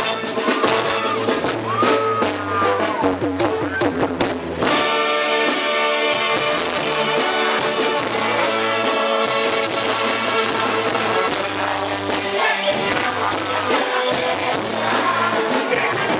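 Live banda sinaloense music at full volume: a male lead singer over the brass band for the first few seconds, then the trumpets and trombones carry the tune with the band from about five seconds in.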